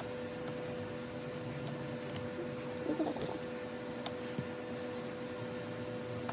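Faint taps and light clicks of photocards being dealt and laid down on a wooden table, over a steady hum.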